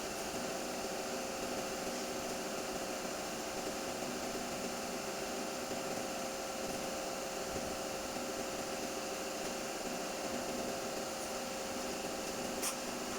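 A steady machine hum with an even hiss over it, holding a few steady tones without change, and a single short click near the end.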